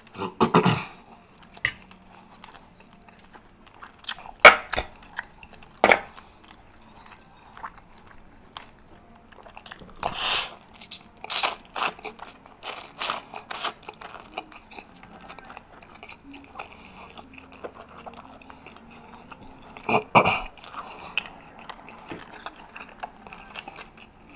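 Close-miked eating: wet chewing, lip smacks and crunchy bites of rotisserie chicken, in short irregular bursts. Around the middle comes a run of loud, hissy slurps as spaghetti noodles are sucked in.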